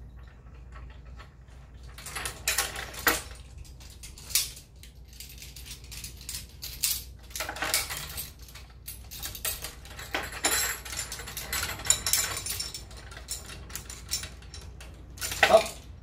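Metal carabiners and rigging hardware clinking irregularly while climbing rope is pulled and handled to set up a canyoning rig, with a louder clatter near the end.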